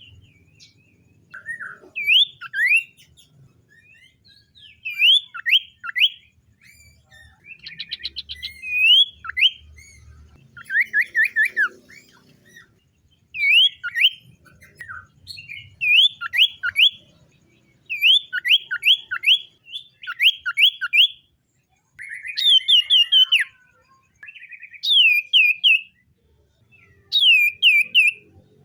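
Common iora singing: phrases of three to five quick sliding whistles, repeated every couple of seconds, with a rapid trill about eight seconds in.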